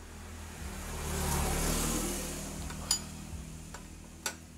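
A motor vehicle passing by, its engine and road noise swelling to a peak about halfway through and then fading. Two sharp clicks about three and four seconds in.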